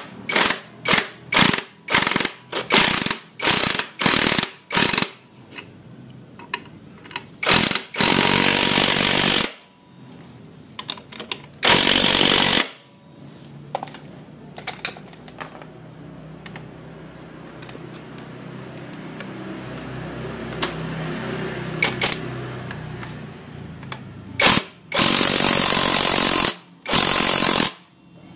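Cordless battery impact wrench hammering on a large nut of a scooter's CVT through a big socket. It runs in many short trigger bursts at first, then in a few longer hammering runs of a second or two, with quieter stretches of light knocks in between.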